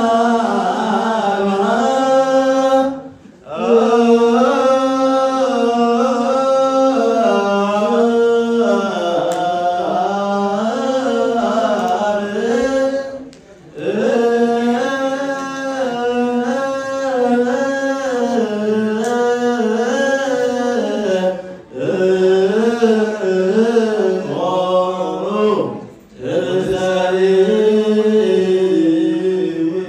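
Orthodox Tewahedo Nativity hymn (zimare) sung by men's voices through a microphone and PA. The melody moves in long, ornamented phrases, broken by brief pauses for breath every few seconds.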